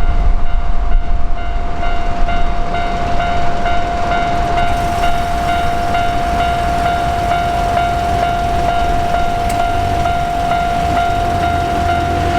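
A Hankyu train passes over a level crossing, its wheels clattering and rumbling loudly for the first four seconds before the noise eases. Throughout, the crossing's electronic warning bell rings steadily, pulsing about twice a second.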